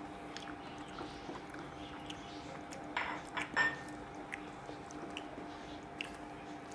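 Fingers mixing rice and kochur lotir pathuri on a ceramic plate: soft squishes and small clicks, loudest in a short cluster about three seconds in, over a faint steady hum.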